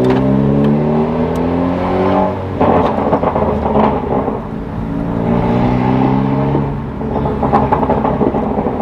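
The turbocharged 1.5-litre four-cylinder of a 2017 Civic Si with a catless downpipe and muffler delete, heard from inside the cabin, accelerating gently. Its note rises twice with a gear change between. Near the end the exhaust crackles and pops as the throttle is released.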